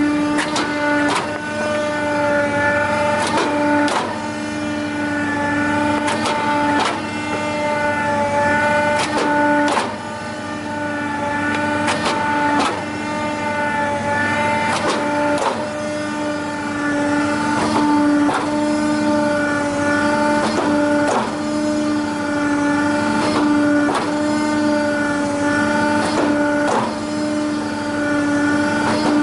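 BrikStar 200-16 hydraulic sawdust briquetting press running: a steady pitched whine, with short sharp knocks every second or two.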